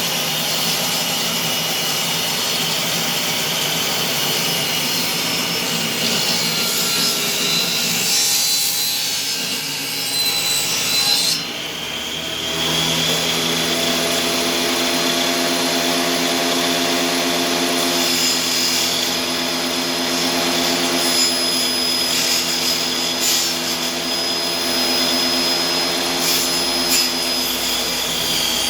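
Power tool working wood, running loud and steady; about twelve seconds in the sound changes and a steady motor hum comes in underneath.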